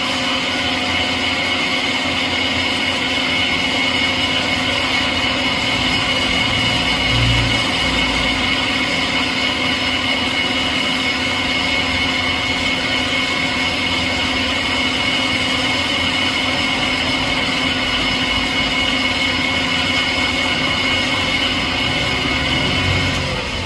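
Metal lathe running with its chuck spinning, a steady mechanical hum with a constant high whine; it winds down near the end as the spindle is stopped.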